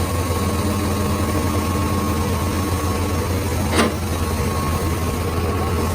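Heavy construction machine's engine running steadily, with a single sharp knock about four seconds in.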